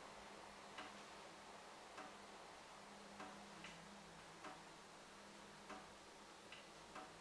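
Water dripping from a tap, faint single drops landing about once a second at slightly uneven intervals, each a short plink, over a low steady hum.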